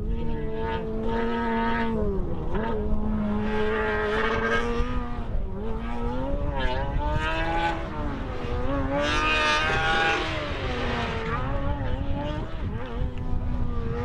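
Formula SAE race car's small 610cc-or-under engine running hard through an autocross course. Its pitch rises and falls again and again as the driver accelerates and lifts between the cones. It is loudest about nine to ten seconds in, as the car passes closest.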